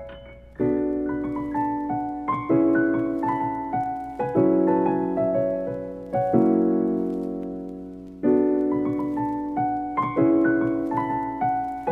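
Background piano music: a slow piece of chords struck about every two seconds, each left to ring and fade, with a simple melody above.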